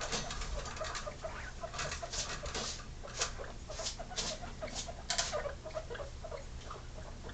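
Guinea pigs making a string of short, soft notes several times a second, typical guinea pig chutting, with scattered small clicks and rustles of paws and bedding as they move about.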